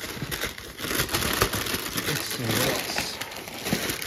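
White packing paper crumpling and rustling as hands dig through it inside a cardboard box, a busy, continuous crackle.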